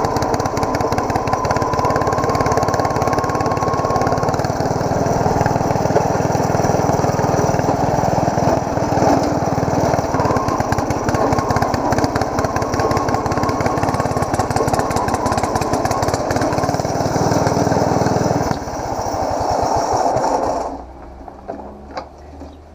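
Ariens YT11 lawn tractor's engine running steadily as the tractor is test-driven with its swapped drive pulleys. The sound changes about eighteen seconds in and drops away sharply a couple of seconds before the end.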